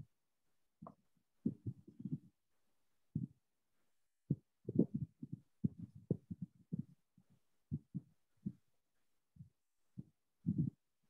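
Irregular soft, low thumps and bumps of handling noise, muffled and heard over a video call, with dead silence between them.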